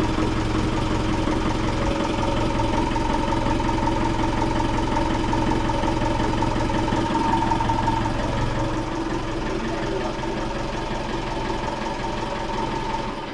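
Boat's inboard diesel engine running steadily with a shaft turning, a steady whine over the engine note; the owner hears a weird noise he suspects may come from low transmission fluid. The low rumble eases about eight or nine seconds in, and the engine sound falls away at the very end.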